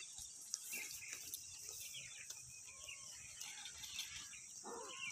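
Faint outdoor ambience: a steady high-pitched insect drone with scattered short bird chirps.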